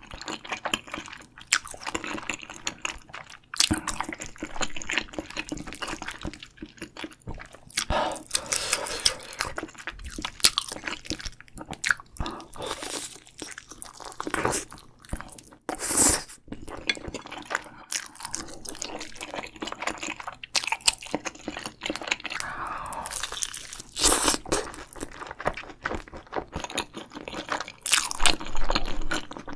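Close-miked eating: crunchy bites and chewing, with sharp crackles at irregular intervals.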